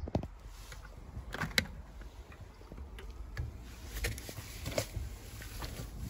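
Soaked laundry and standing water sloshing in a Hotpoint washing machine drum as a hand moves the clothes, with a few handling knocks, the sharpest about a second and a half in. The water is standing in the drum because a blockage has stopped the machine draining.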